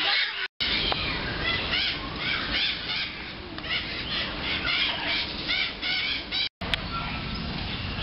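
Many birds chirping and calling at once, short repeated chirps over a steady low background murmur; the sound cuts out twice for a split second.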